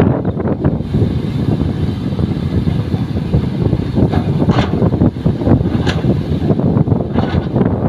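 Kobelco hydraulic excavator's diesel engine running steadily under load as it digs into an earth quarry wall, with a few short sharp scraping noises about halfway through and near the end.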